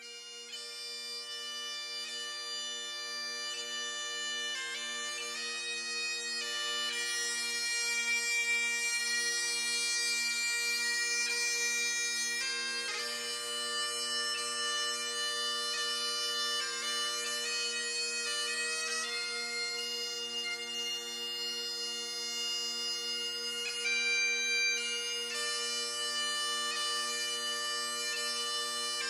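Bagpipe music: a slow melody played over steady drones, fading in at the start.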